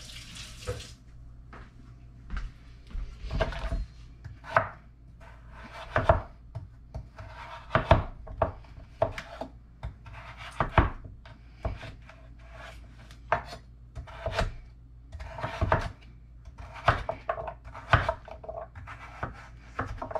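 Kitchen knife cutting a turnip into cubes on a wooden cutting board: irregular knocks of the blade hitting the board, mixed with short sawing strokes through the root. A running tap cuts off within the first second.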